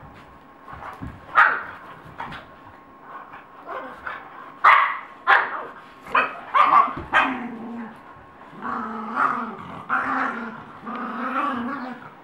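Dogs tussling, among them an Irish wolfhound and cairn terriers: several sharp barks and yelps in the first half, then long, low growls in the second half.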